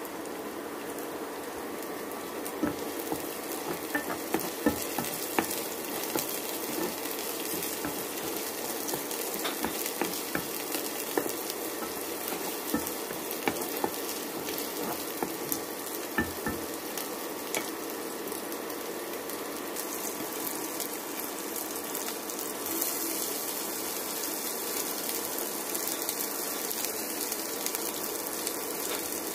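Sliced onions frying in oil in a nonstick pan: a steady sizzle with scattered sharp clicks and pops, most of them in the first half, as a wooden spatula stirs the onions.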